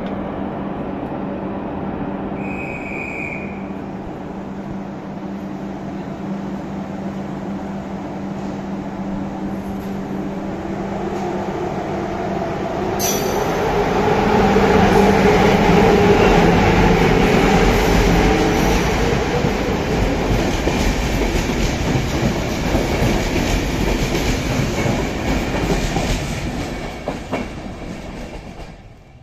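Croatian Railways class 1141 electric locomotive standing at the platform with a steady low hum, with a brief high beep about two and a half seconds in. From about 13 seconds in, a louder rumble of train wheels on the rails with some squeal takes over, then fades near the end.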